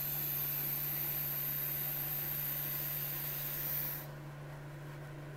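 Long drag on a Theseus rebuildable dripping atomizer firing a 0.2-ohm nichrome alien coil at 60 watts: a steady hiss of air drawn through the atomizer with the coil firing, which stops about four seconds in.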